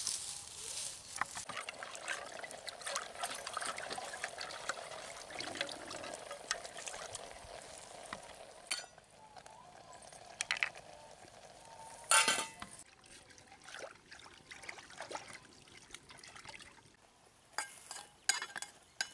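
Liquid poured into a metal cooking pot, running steadily for several seconds and again briefly. About twelve seconds in there is one sharp knock, and near the end a few metal clinks of a spoon against the pot.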